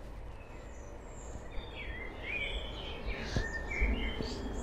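Birds chirping and calling outdoors, a few short warbling calls that grow busier about halfway through, over a steady low background rumble.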